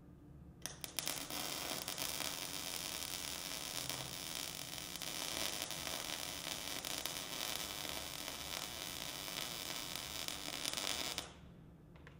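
MIG welder arc crackling and hissing steadily while welding a corner joint of a steel angle-iron frame. It starts with a few short sputters about half a second in, settles into one continuous run, and cuts off about a second before the end.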